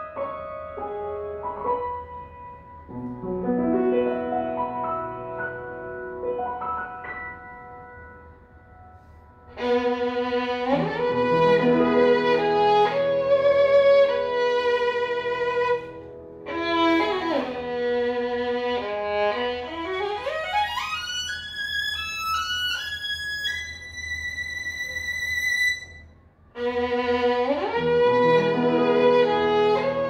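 Violin with piano accompaniment playing a classical piece. A softer passage gives way to the violin coming in loudly about a third of the way through, then a fast upward run climbs into very high notes, and after a brief break the loud playing resumes near the end.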